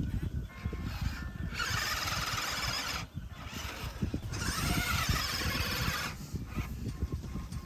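Small electric motor and gearbox of an MN-series 1/12 RC crawler whining in two throttle bursts as it drives on sand: one around two seconds in, and a longer one from about four to six seconds whose pitch rises and falls. A low rumble and crackle runs underneath throughout.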